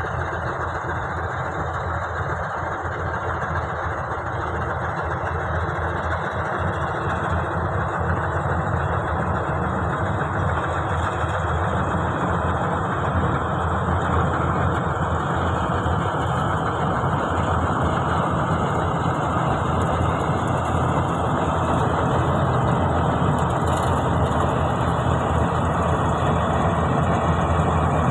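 Combine harvester's diesel engine and machinery running steadily, growing gradually louder as the harvester comes closer.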